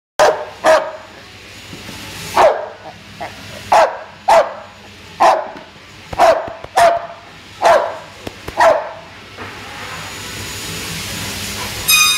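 American bulldog barking at close range: about ten loud, single barks spaced irregularly over the first nine seconds, then it falls quiet.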